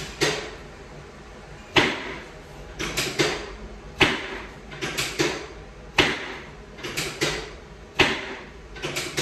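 Chiropractic drop table's drop section snapping down under thrusts, a loud clack about every two seconds with smaller clicks between, during drop-technique adjustments to level the pelvis.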